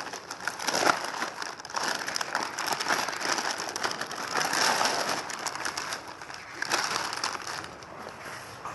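Plastic packet crinkling and rustling irregularly as it is opened by hand and the air conditioner cover inside is pulled out and handled; it gets quieter near the end.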